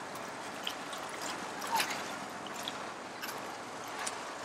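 Water lapping and trickling against the hull of a moored boat, with scattered light clicks and a slightly louder one a little under two seconds in.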